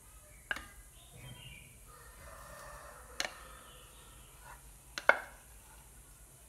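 Chopsticks and a silicone spatula scraping thick custard out of a metal saucepan and knocking against the pan and a ceramic bowl. There are a few sharp taps, the loudest about five seconds in, with soft scraping between them.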